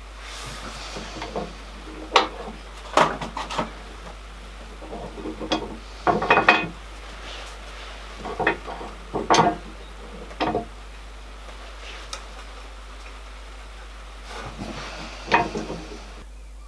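Hammer striking a copper chimney cowl being formed by hand: about a dozen sharp metallic knocks in irregular clusters with pauses between, plus softer scuffing near the start and near the end.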